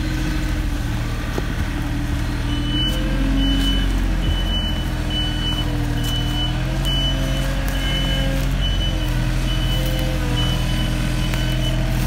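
Engine of a small tractor with a front blade running steadily as it works a gravel forest path, with its reversing alarm beeping a little more than once a second from about two and a half seconds in.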